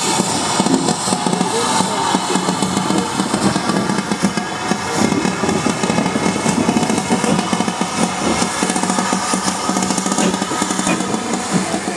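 GWR Manor class 4-6-0 steam locomotive 7812 Erlestoke Manor moving slowly past. It makes a steady mechanical din of steam and running gear, with several held tones and many irregular knocks.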